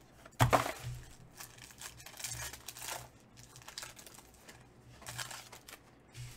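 Foil trading-card pack being torn open and crinkled: a sharp rip about half a second in, then several shorter bursts of crinkling foil.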